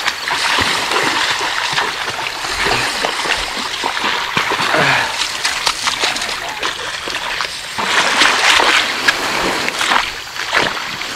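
Water splashing at the shoreline's edge as a small channel catfish is reeled in to the beach, over a steady rushing noise with many small clicks through it.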